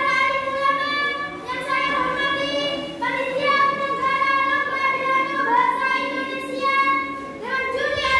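A girl singing unaccompanied, holding long notes in short melodic phrases.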